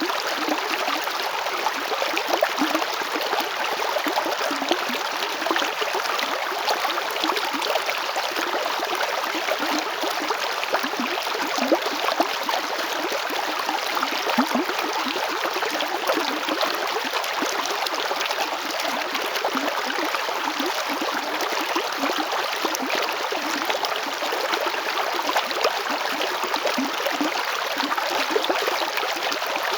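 River water flowing over stones, with a steady rush and small gurgles and splashes.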